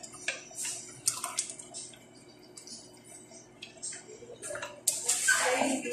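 Wooden spatula stirring and turning pork pieces in thick tomato sauce in a stainless steel pot: wet stirring sounds with scattered light knocks against the pot, busier near the end.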